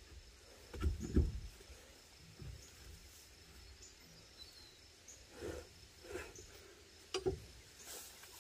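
A few faint knocks and clunks of a four-way lug wrench and steel wheel being handled while a wheel is fitted and its lug nuts snugged: two close together about a second in, more near the end.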